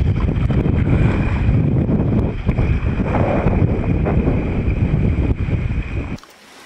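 Wind buffeting the microphone, a loud low rumble, with a steady high-pitched tone underneath; it cuts off suddenly about six seconds in.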